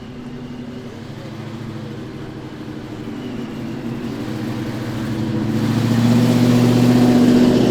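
A car's engine running as the car approaches and drives past, steadily growing louder and loudest near the end.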